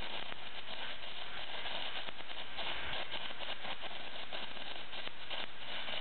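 Electric welding arc powered by a golf cart's battery pack through jumper cables, crackling and sizzling steadily and without a break as the weld bead is laid.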